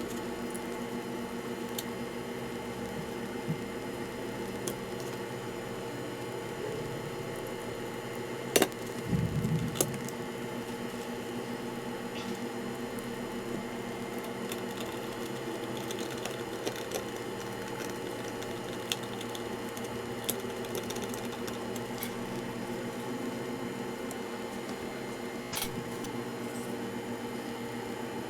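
Steady background hum with scattered small clicks. A sharp click comes about eight seconds in, followed by a few low knocks, and another click comes near the end.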